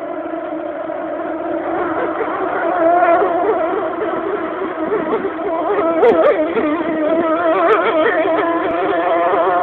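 Speedboat engine running at steady high revs: a loud, droning note that wavers a little in pitch. Two brief clicks come about six and eight seconds in.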